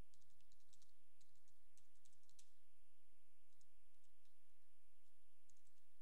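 Computer keyboard typing: a quick run of keystrokes over the first two and a half seconds, a few more around three and a half seconds in, and a short burst near the end.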